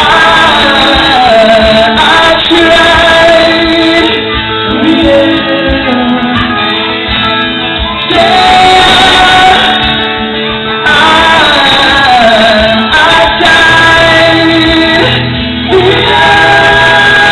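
Live pop-rock band playing loudly, with singing over guitar and drums.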